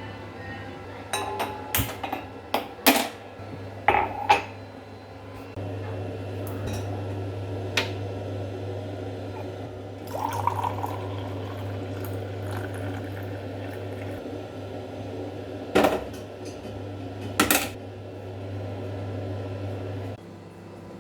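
Kitchen work: metal pots, pans and utensils clink and knock against each other about nine times, most of them in the first few seconds, while liquid is poured or filled into a vessel, over a steady low hum.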